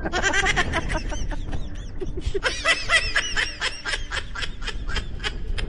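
Many short, high chirping calls overlapping rapidly, several a second, like a flock of small birds, over a low wind rumble on the microphone.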